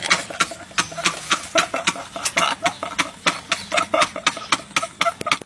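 Two men laughing hard in a rapid run of short, uneven bursts.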